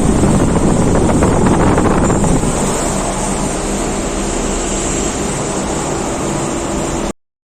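Fuji Electric air conditioner outdoor units running: a steady rush of condenser fans over a low compressor hum, a little louder for the first two seconds or so, cutting off suddenly near the end.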